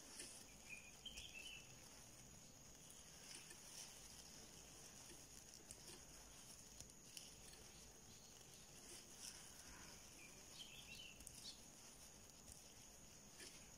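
Near silence: faint steady hiss with a thin high tone, a few soft ticks, and two brief faint high chirps, one about a second in and one about ten seconds in.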